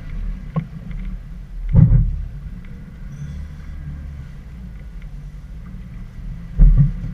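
Suzuki Jimny driving off-road with its engine running low and steady, while the body and suspension knock and thump over rough ground. The heaviest jolts come about two seconds in and near the end.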